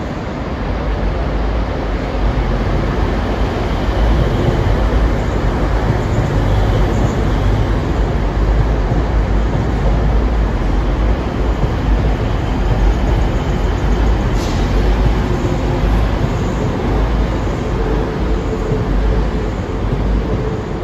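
Two coupled TransPennine Express Class 185 diesel multiple units running along the platform and past close by: a steady deep engine drone with wheel and rail noise, growing louder about two seconds in. A single brief click comes about midway.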